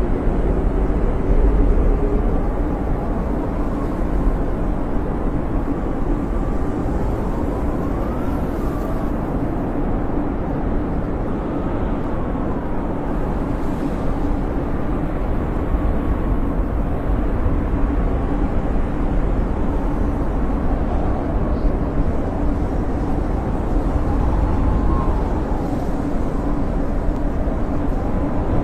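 Howling blizzard wind: a steady low rush with faint whistling tones that rise and fall every few seconds.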